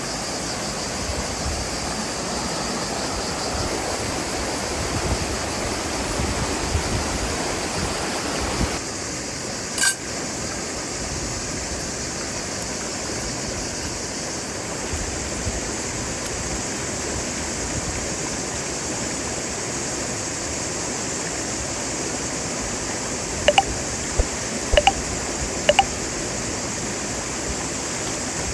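Steady rushing noise like flowing water, with a sudden change in its tone about a third of the way in and a sharp click just after. Near the end come a few short, sharp, high-pitched sounds.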